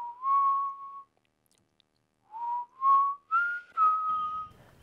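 Whistling a short tune in two phrases of clear notes. The first phrase is two notes rising slightly. After a pause of about a second, four notes step up and settle back a little.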